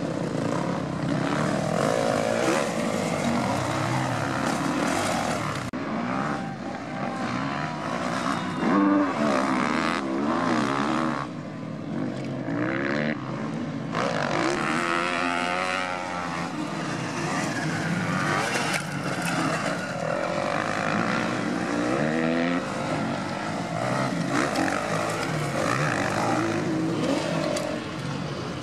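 Motocross bike engines revving hard as the bikes race past on the dirt track, their pitch repeatedly rising and falling with the throttle.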